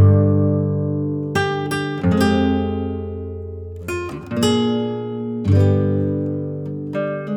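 Background music: acoustic guitar, slow plucked notes and chords left to ring and fade.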